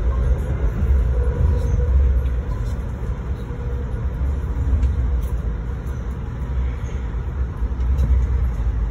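Passenger train running at speed, heard from inside the coach: a steady low rumble.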